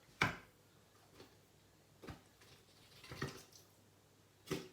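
About five short, separate taps and crackles while more instant-snow powder is being added to a wet mix. The first, just after the start, is the loudest.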